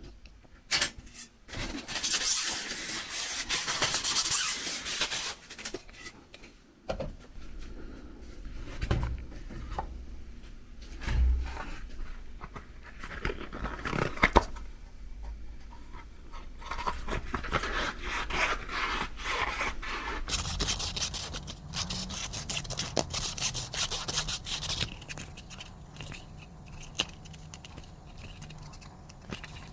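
Hands rubbing and scraping over a bicycle wheel's rim strip and rubber tire, in bouts of scuffing with a few sharp knocks in between.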